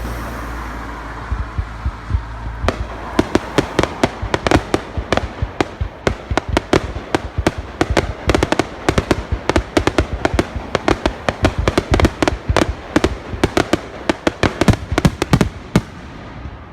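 Fireworks display: a low rumble at first, then a rapid barrage of sharp bangs and crackles, several a second, that keeps going.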